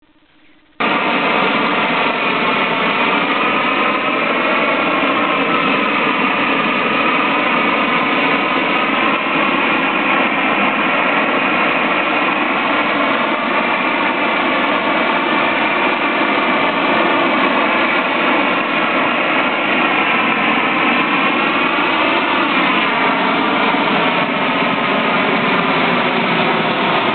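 Gas torch used for singeing a pig, burning steadily with a loud rushing flame and a faint tone that wavers slowly in pitch; it starts abruptly under a second in.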